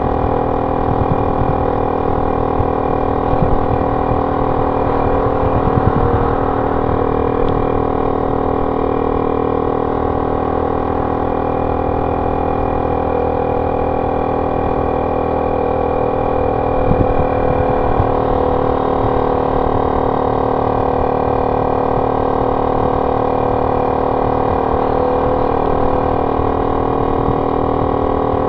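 Honda C70's small single-cylinder four-stroke engine running steadily at cruising speed through its banana-shaped ('pisang') exhaust, heard from the rider's seat as an even drone that holds one pitch.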